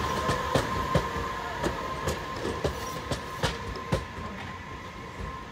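Tobu Noda Line electric commuter train rolling slowly away, its wheels clicking over rail joints in pairs, with a steady high whine under the clicks. The sound fades as the train draws off.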